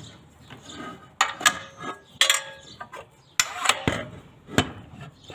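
Metal parts of a circular saw clinking and rattling as the blade and its fittings are handled and taken off the arbor. Several separate clusters of sharp clinks, some with a short metallic ring, the loudest about one and a half, two and a quarter and three and a half seconds in.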